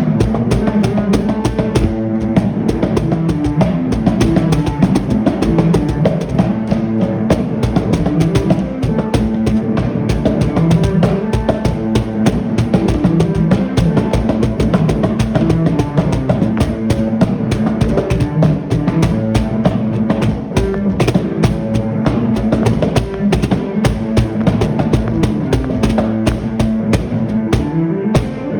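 Loud music played on drums with a guitar line, with a steady, fast beat.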